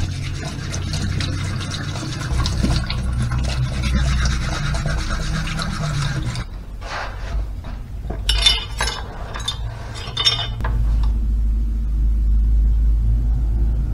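Kitchen tap running into a stainless steel sink while a metal spoon is rubbed clean under the stream. About six seconds in the water stops, followed by a run of short metallic clinks and scrapes as the spoon is handled on a stone countertop. A steady low rumble comes in near the end.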